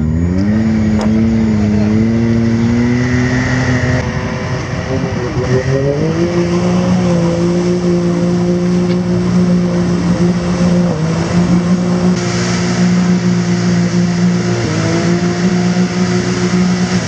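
Can-Am Maverick X3's turbocharged three-cylinder engine revving up hard and held at high revs under load as the buggy, with one drive shaft torn off, tries to pull itself through swamp mud. The revs sag and climb again about five seconds in, dip briefly a few more times, and drop off near the end.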